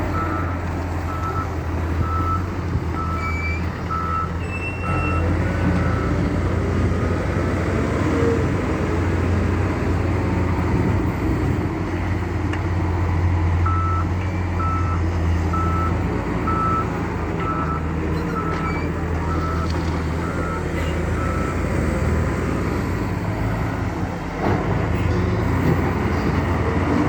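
Diesel engine of heavy construction machinery running steadily, with a reversing alarm beeping at an even pace in two spells, the second in the middle of the stretch. There is a single clunk near the end.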